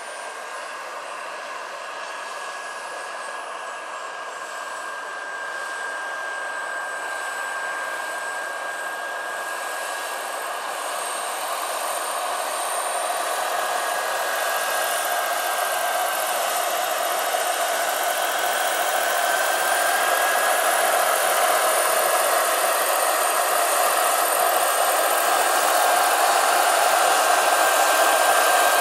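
Small gas-turbine engine and coaxial rotors of a 1/5-scale RC Kamov Ka-32 model helicopter in flight: a steady high whine over the rush of the rotor blades, growing steadily louder as the helicopter comes closer.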